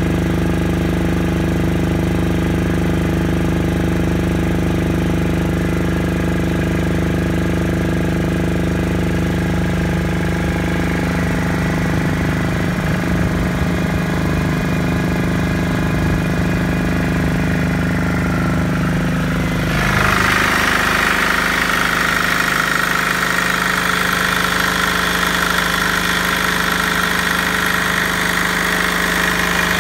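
A KHD (Deutz) F1L 210 D single-cylinder air-cooled diesel runs steadily, driving a military generator set. About twenty seconds in, the sound shifts abruptly to less low hum and a louder high-pitched hiss.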